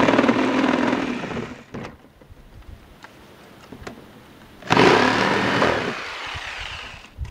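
Corded electric jigsaw cutting a corner of a window opening in a plastic wall panel, its motor whining over the rasp of the blade. It runs for the first second and a half or so, stops, then starts again sharply near the five-second mark and trails off toward the end.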